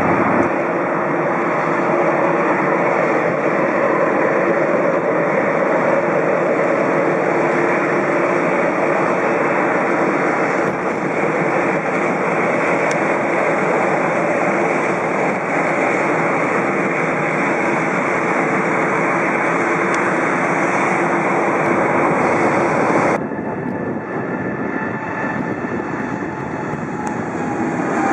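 Boeing 787-8 Dreamliner's jet engines running at taxi power: a steady rushing whine with a few held tones. About 23 s in the sound cuts to a quieter stretch, then swells again near the end as the airliner rotates off the runway at takeoff power.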